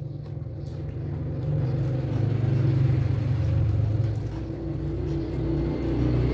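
A motor vehicle engine running nearby: a low, steady rumble that grows louder about a second and a half in and stays on.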